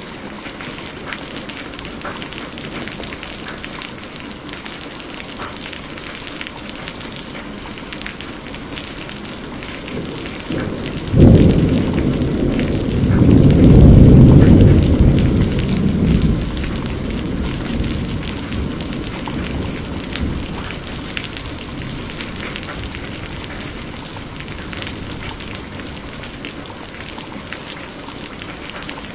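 Steady rain falling, with a thunderclap about eleven seconds in that rolls into a loud, deep rumble and fades away over several seconds.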